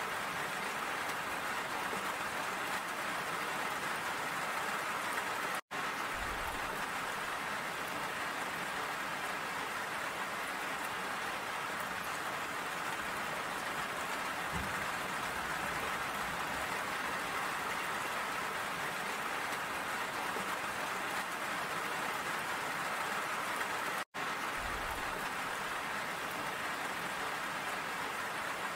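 Steady rain falling, an even hiss of drops. The sound cuts out briefly twice, about six seconds in and again near the end.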